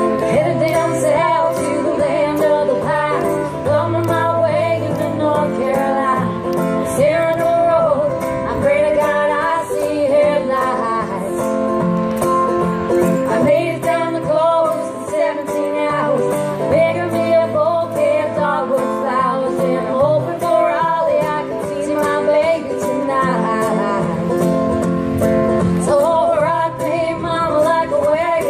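Acoustic guitar playing a blues tune live on stage.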